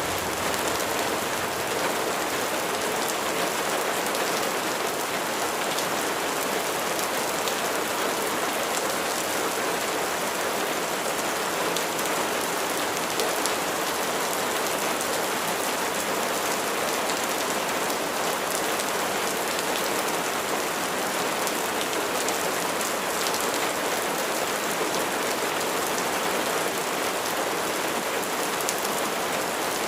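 Steady rain falling on a surface, an even hiss with fine drop patter.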